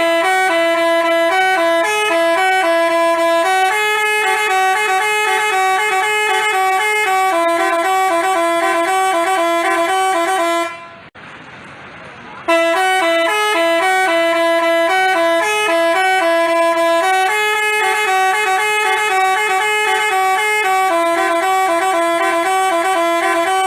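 Telolet basuri musical bus horn playing a tune of stepped horn notes for about eleven seconds, breaking off briefly about halfway through, then playing the same tune again.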